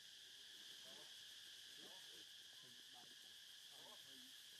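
Faint, steady drone of forest insects, held at two constant pitches, with faint wavering sounds underneath.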